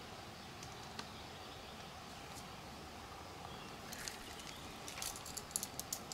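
Faint steady outdoor hiss, then from about four seconds in a run of irregular sharp ticks and small splashes at the water surface, loudest near the end, as a small hooked fish is drawn in on a float rig.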